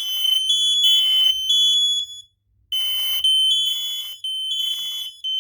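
Kidde 1285K smoke alarm sounding in test: a loud, high-pitched electronic beep repeating in bursts, with a short pause about two seconds in.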